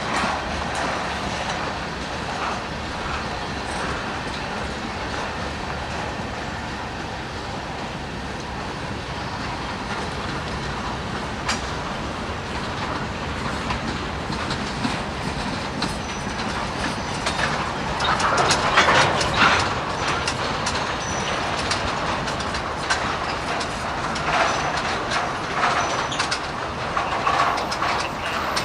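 Freight train cars rolling past, wheels clicking steadily over the rail joints, growing louder in a few stretches about two-thirds of the way through.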